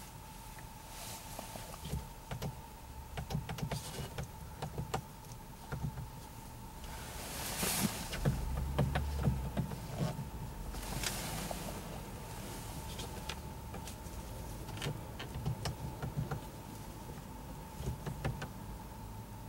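Scattered clicks, taps and soft knocks of plastic car interior trim at the overhead console being handled, with brief rustles, over a faint steady high tone.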